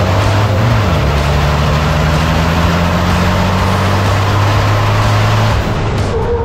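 Onboard sound of a racing vehicle at speed: a steady engine drone under loud wind and road rush. The engine note drops once about a second in, and the drone fades out shortly before the end, leaving the rush.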